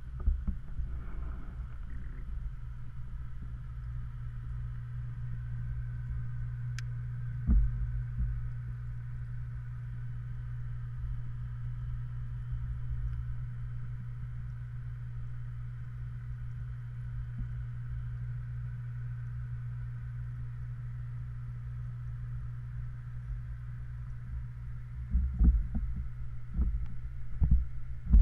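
Underwater sound in a koi pond: a steady low hum over a murky rumble of water. A dull knock comes about seven seconds in, and a few more come near the end.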